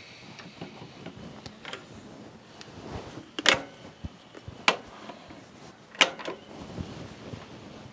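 Three sharp metallic clinks, a little over a second apart, from tooling being handled at a milling machine's spindle, over quieter handling noise.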